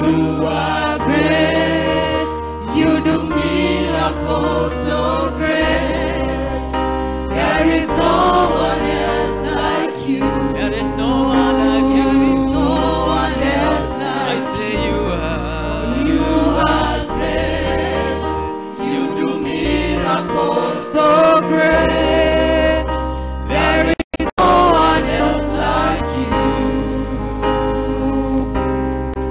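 Church choir singing a gospel worship song over band accompaniment with a steady low bass line. The sound cuts out completely for a split second about 24 seconds in.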